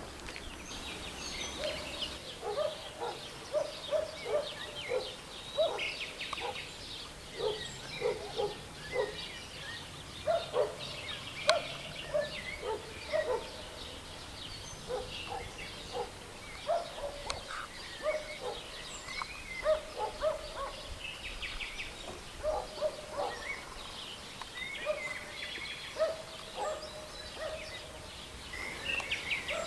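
Birds calling outdoors: a long run of short, low, repeated calls, with higher songbird chirps above them.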